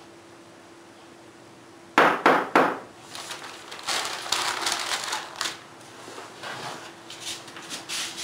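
Three sharp knocks, as on a wooden door, about two seconds in, followed by a newspaper crackling and rustling as it is folded up.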